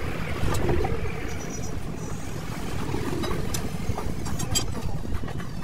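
Wind rumbling on the microphone, with a few light metallic clicks of a wheel spanner working on a truck wheel's nuts, the sharpest a little over four seconds in.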